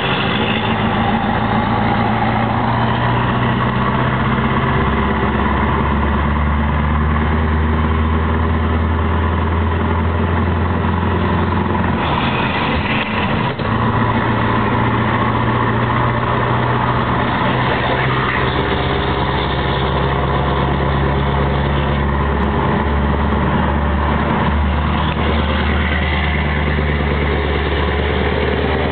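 Scania 164 480's V8 diesel engine running steadily at low revs, heard from inside the cab as the truck drives slowly. The sound dips briefly about halfway through.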